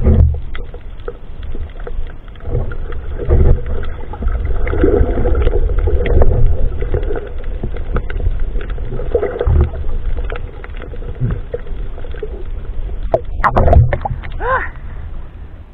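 Underwater camera sound of moving water: a steady low rumble and sloshing with scattered small clicks, and a few louder knocks near the end followed by a short wavering tone.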